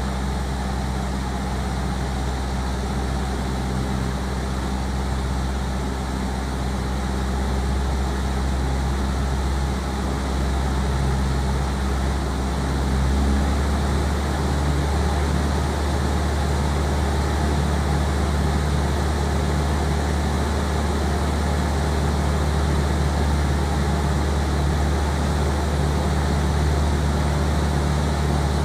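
Single-engine light aircraft in cruise, heard from inside the cabin: a steady piston engine and propeller drone with air rushing past. The engine note shifts slightly and grows a little louder about halfway through.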